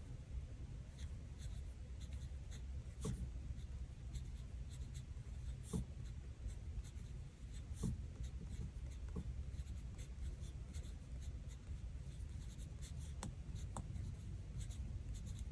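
Faint handling of planner stickers and paper on a planner page: soft rubbing and scratching with scattered light taps and clicks.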